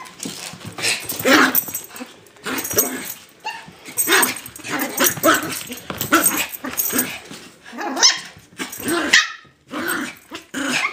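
Small dogs barking in a run of short bursts, about one or two a second, while they wrestle in play.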